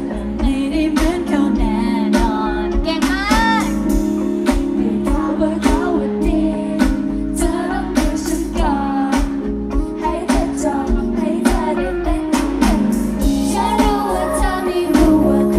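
Thai pop song played over stage speakers: a woman's voice singing over a steady beat with regular drum hits.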